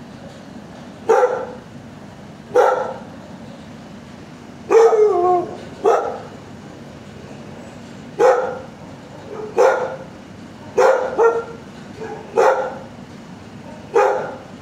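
A dog barking repeatedly in a shelter kennel, about ten single barks spaced a second or so apart, each trailing off in an echo from the hard walls. One longer, drawn-out bark falls in pitch about five seconds in.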